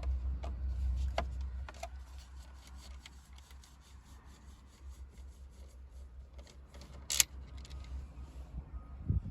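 Small clicks and rubbing from a Torx driver backing a screw out of the car's centre console, with one sharp, louder click about seven seconds in.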